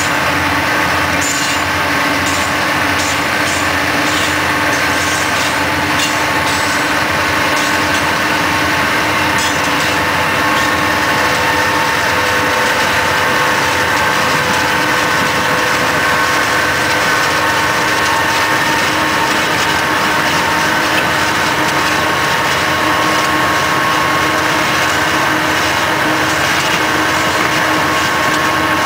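Diesel-electric freight locomotives running steadily under power, heard from a vehicle keeping pace alongside, with road and wind noise mixed in.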